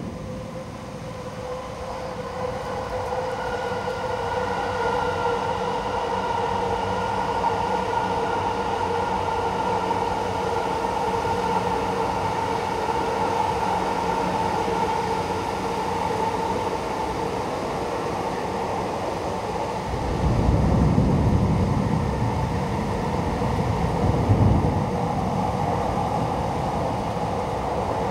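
Heavy downpour of a sudden cloudburst hissing steadily over the city, with a steady droning hum underneath. Low rolls of thunder come about twenty seconds in and again a few seconds later.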